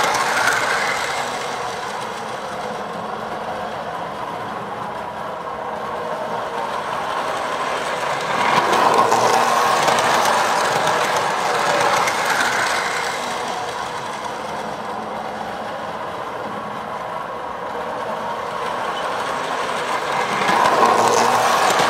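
Lionel Liberty Special toy electric train running around an oval of tubular metal track: a steady running noise of motor and wheels that grows loud as the train passes close, about 8 to 12 seconds in and again near the end, and fades as it goes round the far side.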